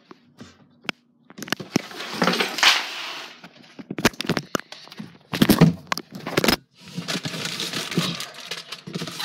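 Handling noise: knocks, clicks and rustling as things are moved about and the phone is jostled, with several sharp knocks throughout.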